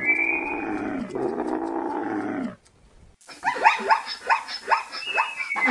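Animal call sound effects: a long, growling, drawn-out call that breaks once and stops about two and a half seconds in. After a brief pause comes a rapid series of short, falling yelps, about three a second.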